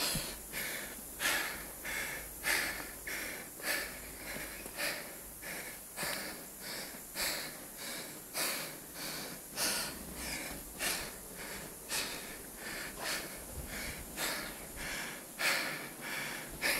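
Heavy, rhythmic breathing of an exhausted athlete close to the microphone, a short forceful breath about every second and a bit: hard recovery just after an all-out workout.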